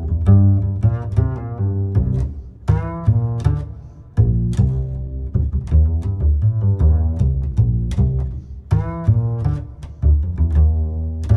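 Background music: deep plucked and bowed string bass lines over a regular percussive beat.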